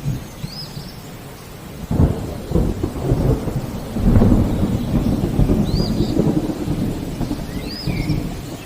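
Thunderstorm: steady rain with a crack of thunder about two seconds in, then a long rolling rumble of thunder from about four seconds on. A few short bird chirps sound over it.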